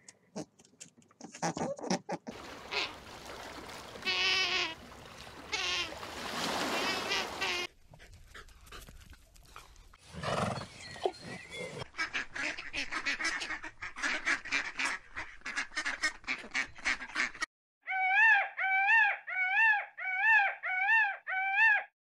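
A run of bird calls: rapid, repeated duck quacking in the second half, then a peacock calling about seven times in quick succession near the end, each call rising and then falling in pitch.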